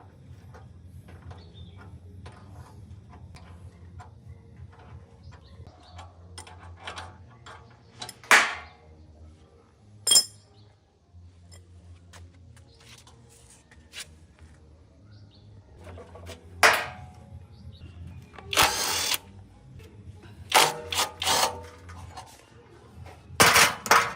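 Mechanical repair work on a small motorcycle-type engine: scattered metal clinks and knocks, several loud sharp bangs, and a few short bursts of a power tool, the longest lasting about a second.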